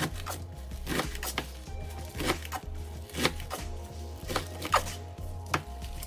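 Kitchen knife chopping collard greens on a cutting board: irregular sharp strikes, about ten in all, a few of them louder. Background music with a pulsing bass runs under the chopping.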